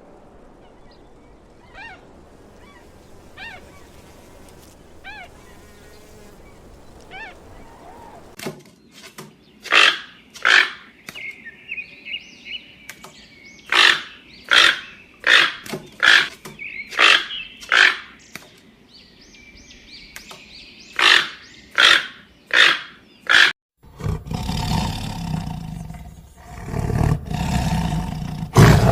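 A run of animal calls: faint, high chirping at first; then loud, harsh calls repeated about once or twice a second over a steady high tone; and, from near the end, a deep roar.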